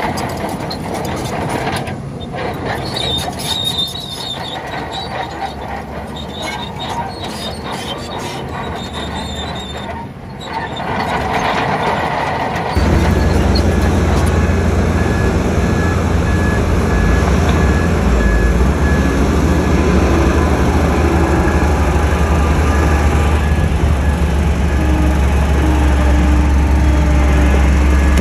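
Heavy earthmoving machinery at work: engines running with metallic squealing and clatter, typical of a crawler bulldozer's steel tracks. About halfway through, the sound abruptly becomes louder and deeper, a steady heavy diesel engine sound.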